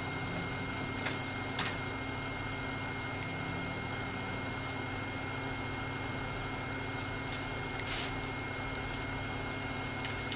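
Heat gun blowing steadily, a constant whine and airflow hiss, with a few light clicks and a short rustle about eight seconds in.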